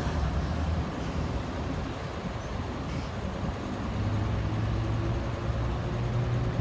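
Semi truck engine running at low revs: a steady low rumble, with a low hum firming up about four seconds in.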